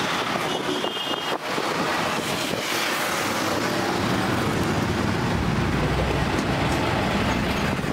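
Steady roadside traffic noise, with a low vehicle rumble building in the second half.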